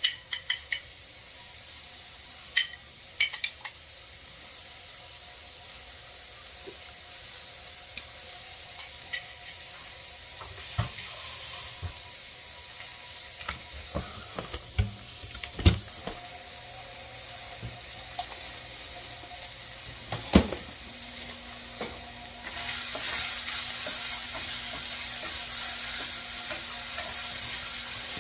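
Mushrooms and zucchini sizzling in a frying pan, with scattered clinks and knocks of utensils. About 22 seconds in the sizzle grows louder as a spatula stirs the vegetables.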